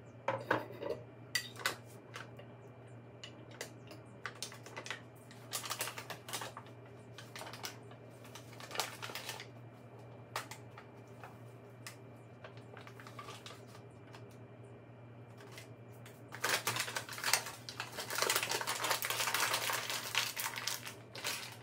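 Kitchen handling sounds: scattered light clicks and knocks of dishes and utensils over a steady low hum. A denser run of clatter and rustling comes near the end.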